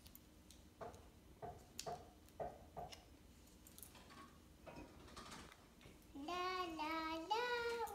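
Scattered light taps and clicks as paper craft pieces and glue sticks are handled on a tile floor. About six seconds in, a child starts singing a few held notes that step up and down.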